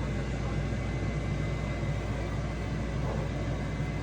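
Steady low rumbling hum with a faint, constant high-pitched whine on top, unchanging and without distinct events.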